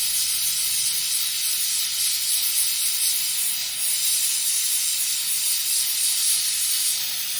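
Oxygen-fuel torch flame hissing steadily while it melts gold in a crucible.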